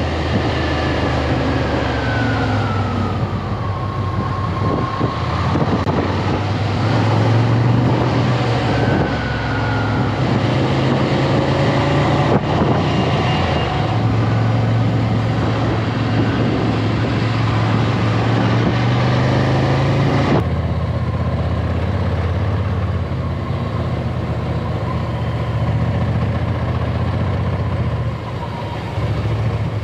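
Ducati Scrambler's air-cooled L-twin engine running as the motorcycle is ridden, its pitch rising and falling with the throttle. The sound changes abruptly about two-thirds of the way through.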